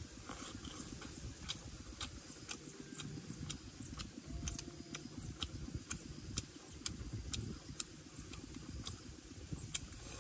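Mouth sounds of a person eating roasted fish: sharp lip-smacking chewing clicks, about two a second, over a low steady rumble.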